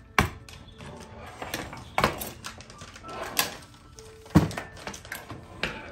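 Handling sounds from toy doll strollers and their packaging: a handful of sharp clicks and knocks about a second apart, the loudest about four and a half seconds in.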